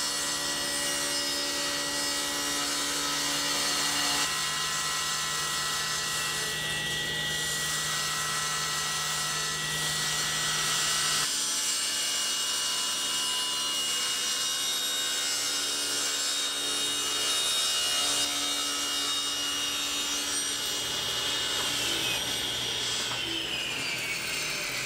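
Table saw running and ripping plywood: a steady motor whine with the blade cutting through the sheet, the sound jumping abruptly twice. Near the end the pitch falls as the blade spins down.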